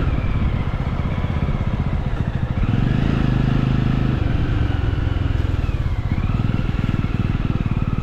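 Motorcycle engine running while riding, with a dense low rhythmic beat that grows louder for about a second, roughly three seconds in.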